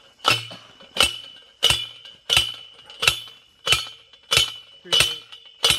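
A manual post driver being slammed down onto a steel T-post, driving it into the ground: nine ringing metal clanks at a steady pace of about one and a half a second.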